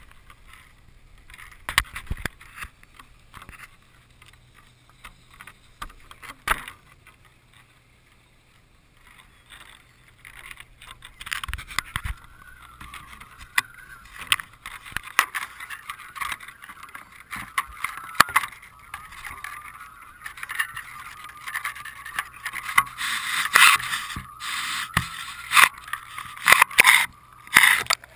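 Seawater splashing and slapping against a GoPro housing floating at the surface on a fishing line, with frequent sharp knocks and a rushing wash of water that builds through the second half.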